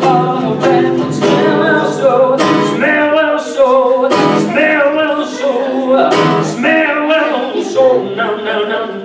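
Acoustic guitar strummed in a lively rhythm with a man singing along.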